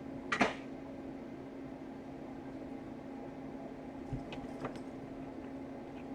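Steady low hum at one pitch, with a sharp click about half a second in and two lighter taps about four and a half seconds in.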